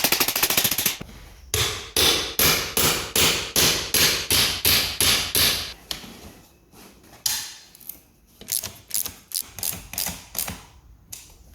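Hammer blows, as the bent frame of a fishing bedchair is beaten straight. The blows come evenly, about two and a half a second, then stop about six seconds in and start again less regularly.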